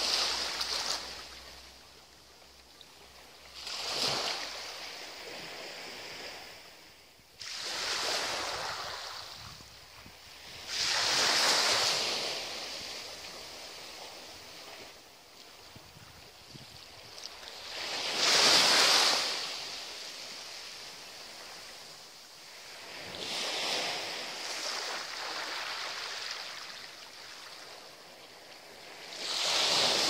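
Small waves breaking and washing up a sandy beach, each one swelling to a hiss and fading away. They come in a slow, uneven rhythm every few seconds, with the biggest breaks a little over a third of the way in and just past halfway.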